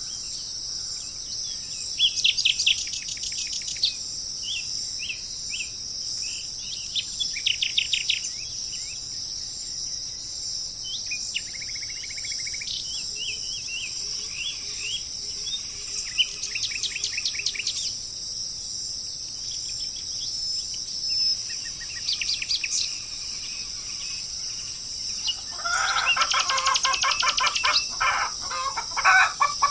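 Several songbirds singing in short, rapid trills every few seconds over a steady high hiss. About 26 seconds in, a louder, lower call of quick repeated notes starts and runs on.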